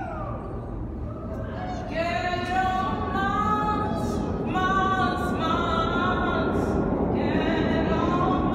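A busker's voice singing unaccompanied in long held notes, breaking off for about a second and a half near the start before the next phrase. A low rumble grows louder underneath.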